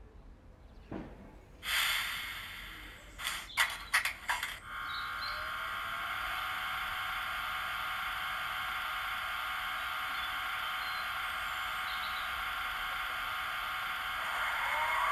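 Stationary Märklin H0 model of the SBB Ee 3/3 electric shunting locomotive, its onboard sound playing: a hiss, then a run of clicks and clanks, then a steady electric hum from about five seconds in, with a rising whine near the end.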